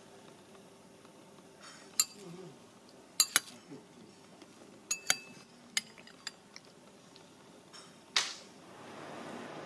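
Metal cutlery clinking against a ceramic bowl while eating: a string of sharp, scattered clinks, a few of them in quick pairs. A steady hiss of room noise rises near the end.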